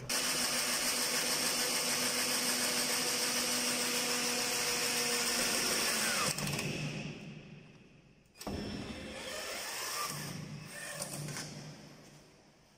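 Cordless drill running against the cabinet's metal top rail, driving a screw. Its motor whine is steady for about six seconds, then winds down. A second, shorter and unsteadier run starts a little later.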